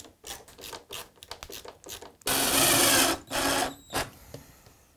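Cordless impact driver driving a screw through an MDF base into a purpleheart runner: a run of about a second, then two short bursts as the screw seats. Before it, light clicks and knocks of handling the screw and tools.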